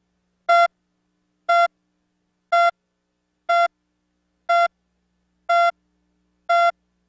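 Countdown beeps of a video slate leader: seven short, identical electronic beeps, one each second, marking the numbers counting down.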